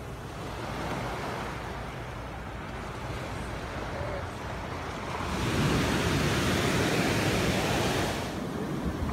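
Small ocean waves breaking and washing up on a sandy beach, swelling louder about five seconds in and easing off about three seconds later.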